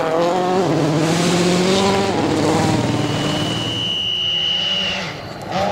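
Rally car engine revving hard, its pitch climbing and dropping through gear changes. A high steady whistle sounds over it for about two seconds, starting some three seconds in.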